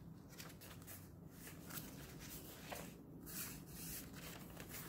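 Pages of a handmade paper junk journal being flipped by hand: a series of faint, soft paper rustles and swishes.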